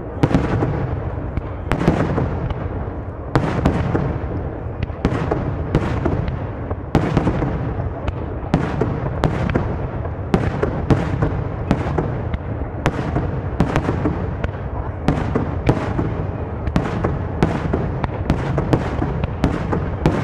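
Aerial firework shells bursting in a rapid, continuous barrage: sharp bangs about one to two a second over a steady low rumble of overlapping, echoing reports.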